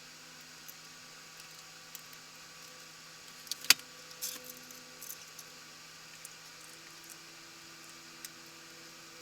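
Scattered light clicks and clinks of small metal parts being handled while the wood stove door's glass and rope gasket are fitted, with one sharp click a little before halfway and a small cluster just after it. A steady electrical hum sits underneath.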